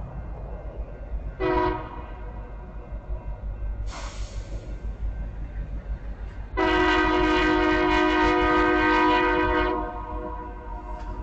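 Diesel locomotive air horn approaching a grade crossing: a short blast about a second and a half in, then a long blast of about three seconds.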